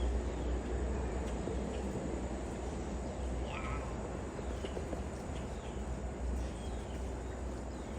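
A large flock of blackbirds calling together: a steady dense chatter with scattered short, harsh higher calls, over a low rumble.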